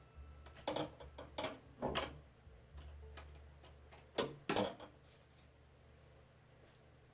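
A series of sharp metal knocks and clicks from hand tools, about six in the first five seconds, over a low steady hum.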